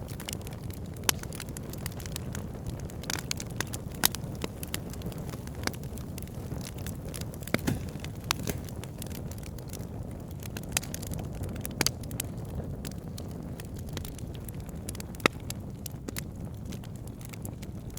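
Campfire crackling: a steady low rumble of burning with irregular sharp pops and snaps throughout, a few of them much louder than the rest.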